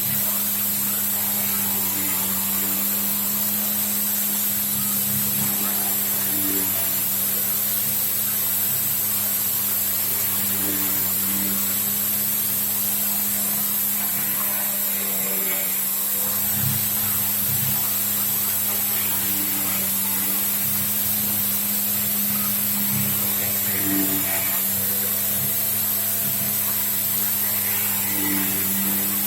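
Homemade CNC milling machine cutting D16T aluminium with a 14 mm end mill at 4000 rpm, with coolant: a steady machining whine and hum, with a shift in tone that comes back about every four seconds as the cutter works its passes.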